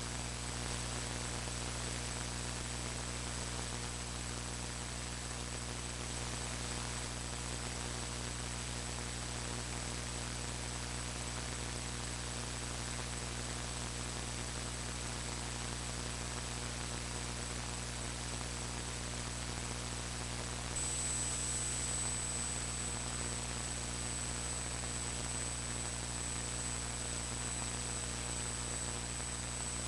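Steady electrical mains hum with hiss and a thin high-pitched whine that gets a little louder about two-thirds of the way through. It is recording-chain noise, the sound fault the video itself warns of.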